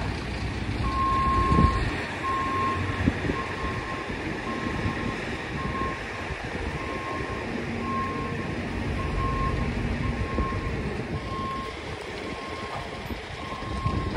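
A vehicle's reversing alarm beeping steadily, about once a second, over a continuous background rumble.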